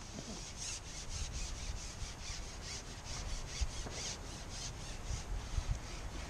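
Fishing pole rubbing and sliding as it is moved, a rapid rhythmic rasp of about four strokes a second.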